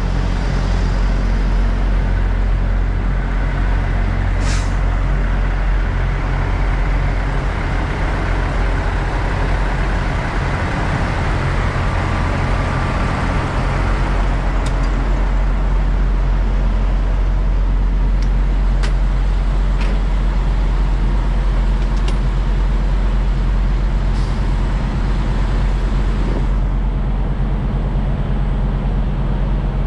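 Diesel semi-truck engine idling with a steady, deep, even rumble, and a few short sharp clicks or hisses over it.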